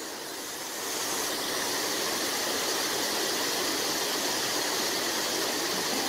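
Water pouring over a low dam's spillway: a steady rushing that gets a little louder about a second in.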